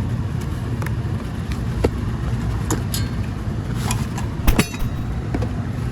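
A steady low rumble with scattered light clicks and knocks, the sharpest about four and a half seconds in.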